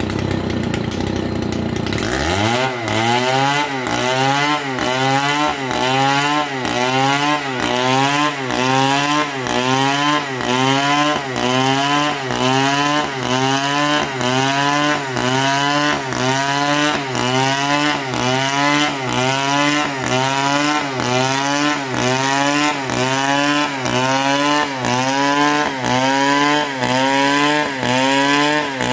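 STIHL chainsaw ripping lengthwise along an old palm trunk. The engine holds a steadier pitch for about two seconds, then rises and falls in pitch over and over, about every three-quarters of a second, as the saw works the cut.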